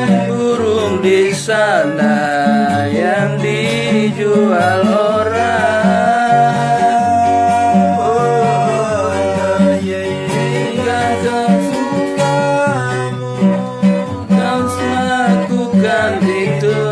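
Acoustic guitar strummed in a steady rhythm, played by two people at once, one strumming and one fretting chords, with a voice singing along in long held, wavering notes.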